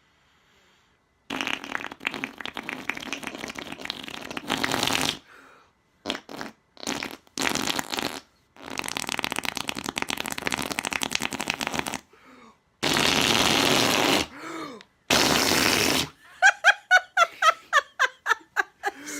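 Raspberries blown against a bare arm, making fart noises: several long buzzing blows of one to three seconds and a few short ones, then a burst of laughter near the end.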